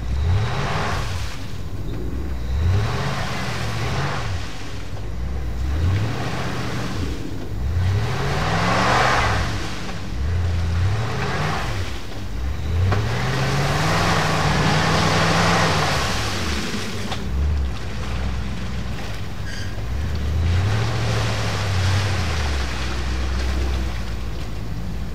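Jeep Wagoneer engine revving hard again and again, its pitch climbing and falling about seven times, with one long rev near the middle, as the truck forces its way through a frozen water hole. Each rev comes with a rush of churning water and breaking ice from the spinning wheels.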